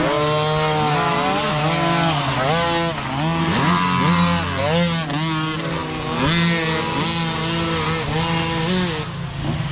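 Several micro dirt bikes revving as they ride past one after another, their small engines' pitch rising and falling over and over and overlapping.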